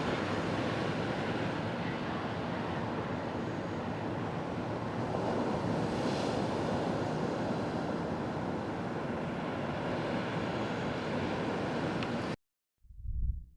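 Steady rushing noise of blizzard wind, with wind buffeting the microphone. It cuts off suddenly near the end, followed by a brief low thump.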